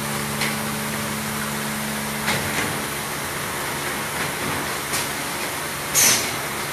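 CNC corner cleaning machine running, with a steady low hum that stops a little over two seconds in. A few short sharp clicks and hisses follow, the loudest near the end.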